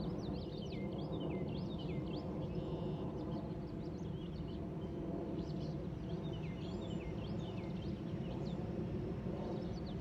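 Birds chirping and singing in many quick, falling notes over a steady low background rumble.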